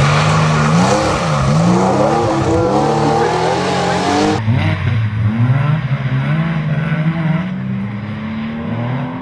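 Historic rally cars at full throttle. A Porsche 911's air-cooled flat-six revs up and down through gear changes as it pulls away. After an abrupt cut about four seconds in, a Ford Escort Mk2's engine climbs steadily in pitch as it accelerates through a bend.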